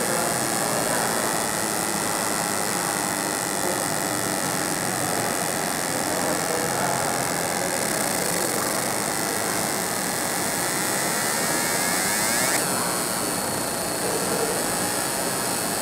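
Fiber laser marking machine engraving an aluminium disc: a steady, loud hissing noise from the machine at work, which changes abruptly about twelve and a half seconds in.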